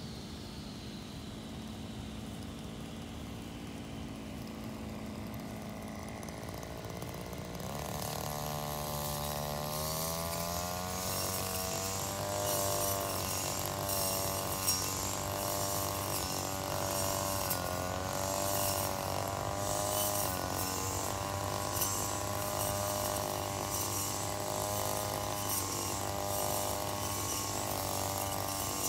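Engine brush cutter idling low, then throttled up about eight seconds in and running hard while cutting tall grass, its pitch dipping again and again as the cutting head takes load, with one sharp hit midway.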